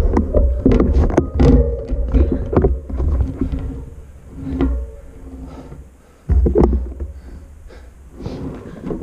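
Wind rumbling on a bike-mounted camera's microphone while riding a bicycle, with knocks and rattles from the bike over the road. The rumble dies down through the middle, comes back suddenly for a moment about six seconds in, then eases again.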